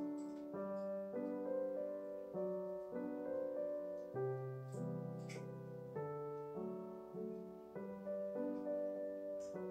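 Background music: keyboard chords, each held about half a second to a second before the next.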